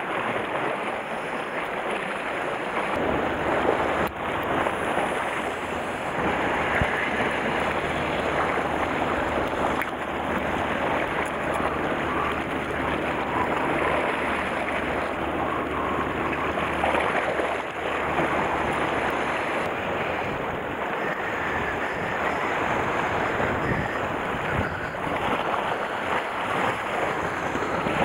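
Sea waves washing and splashing against a rocky shoreline, a steady wash of surf. A low steady hum runs underneath from a few seconds in until about two-thirds through.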